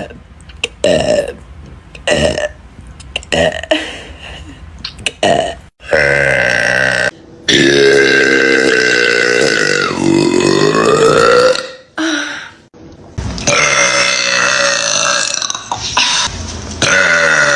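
A woman burping loudly: a string of short burps, then a run of long, drawn-out deep burps, one of which slides down in pitch and back up partway through.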